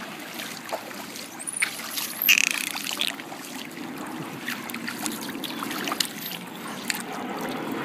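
Pool water splashing and lapping as bottlenose dolphins surface and move at the pool edge, with scattered small splashes and one louder splash-like burst a little over two seconds in.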